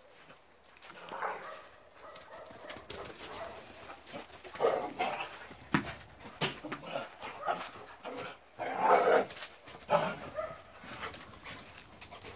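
Two dogs playing rough, barking in short bursts about half a dozen times, the loudest about nine seconds in, with clicks and scuffles between the barks.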